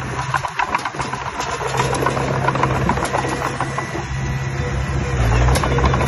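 Komatsu D20P crawler bulldozer's diesel engine running under load as it pushes dirt, with rapid clicking and clanking from its steel tracks. The engine grows louder about five seconds in.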